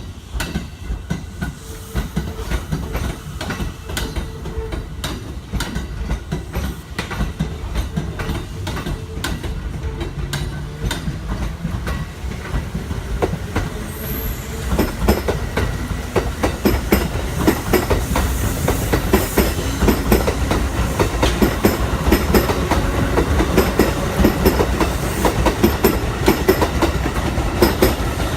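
Kintetsu electric train rolling through the station, its wheels clacking over the rail joints over a low rumble. The clacks come thicker and louder from about halfway through.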